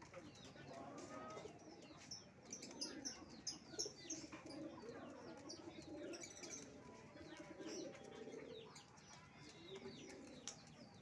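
Pigeons cooing faintly, with small birds chirping in short high notes, thickest about two to four seconds in.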